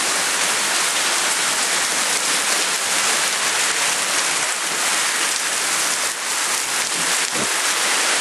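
Heavy rain pouring down, a loud, steady hiss of water hitting the ground and surfaces.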